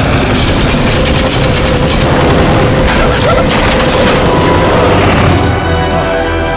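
Orchestral film score mixed with heavy booms and rapid aircraft machine-gun fire, the gunfire densest in the middle. Near the end the music comes to the front with held notes.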